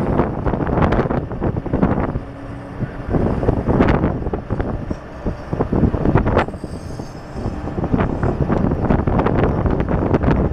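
Road and wind noise inside a moving vehicle: wind buffeting the microphone over the drone of the engine and tyres, with frequent rattles and knocks. It eases briefly twice, about two seconds in and again about six seconds in.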